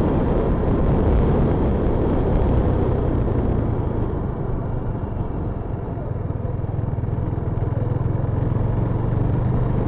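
KTM Duke 390's single-cylinder engine running as the bike rolls and slows at town speed, under a constant rush of wind noise. A steadier low engine note settles in about three seconds in.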